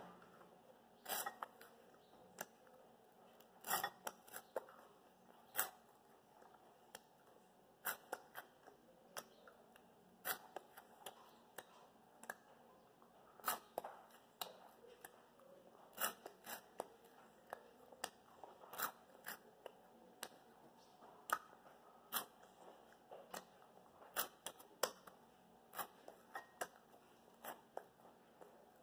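Crunchy puffed corn snacks being bitten and chewed close to the microphone, in a run of short, sharp, irregular crunches and clicks about once or twice a second.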